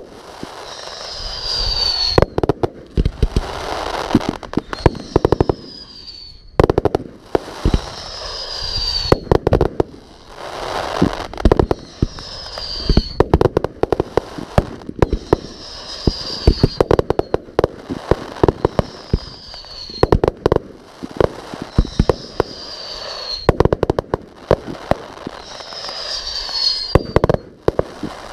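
Aerial fireworks going off in quick succession: a rapid crackle of sharp bangs between swells of hissing noise. Short whistles falling in pitch sound every few seconds.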